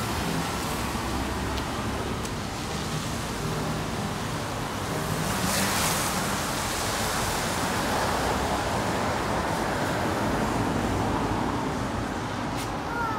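Steady outdoor rush of road traffic and wind, swelling briefly about halfway through.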